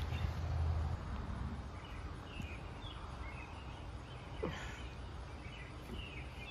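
Outdoor ambience with small birds chirping repeatedly in the background, and a low rumble in the first second.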